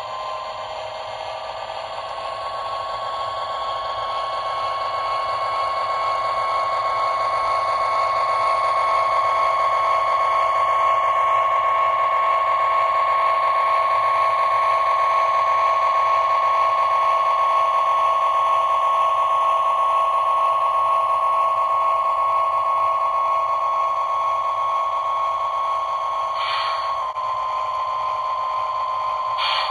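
Lionel LionChief Plus O gauge GP-7 diesel locomotive, shell removed, running on the track: a steady high-pitched whine from its electric motors and gearing that grows louder over the first several seconds and then holds. A couple of brief clicks near the end.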